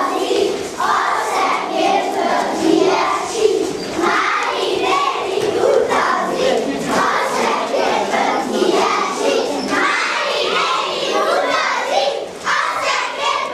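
A group of young children singing together in chorus while they dance, many voices at once.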